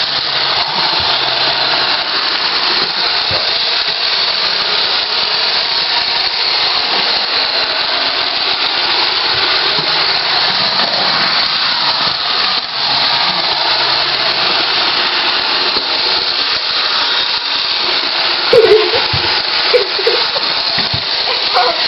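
An iRobot Roomba robot vacuum running steadily, its vacuum motor and brushes giving an even noise. About three quarters of the way through there are two brief louder sounds.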